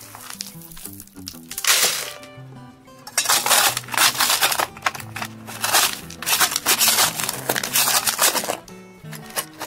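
Loose gravel and rock debris being dug and scraped: rough crunching in repeated bursts, one short burst and then a long run of digging, over background music.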